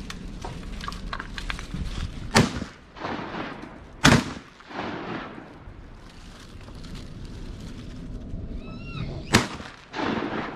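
Three shotgun shots, each with a short echo after it: two about a second and a half apart, then a third some five seconds later.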